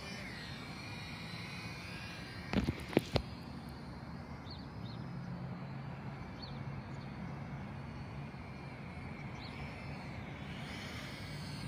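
Holy Stone HS700D quadcopter drone in flight, its brushless motors a faint whir that grows louder and whinier near the end. A few sharp clicks come about two and a half to three seconds in.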